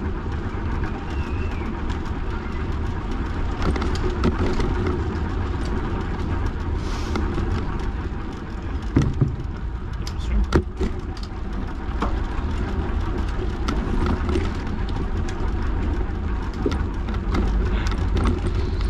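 Bicycle riding along a path: a steady wind rumble on the microphone and rolling noise, with a couple of sharp knocks about nine and ten seconds in.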